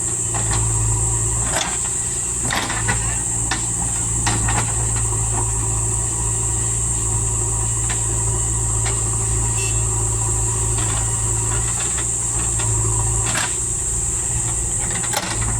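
JCB 3DX backhoe loader's diesel engine running steadily under a constant high whine, with scattered clanks and knocks from the machine working soil. The knocks come several times in the first few seconds and once more near the end.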